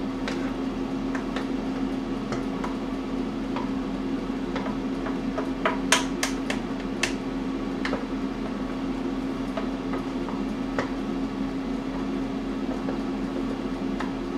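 A steady hum from a running kitchen appliance, with scattered light clicks and knocks of utensils and a quick run of about four sharp clinks about six to seven seconds in.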